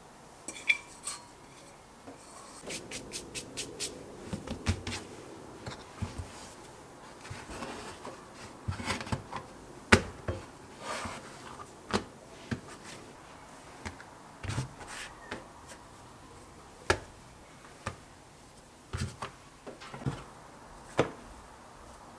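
Salt-bread dough being divided and rounded by hand on a silicone baking mat: soft rubbing and patting, with scattered sharp taps and knocks and a quick run of clicks a few seconds in.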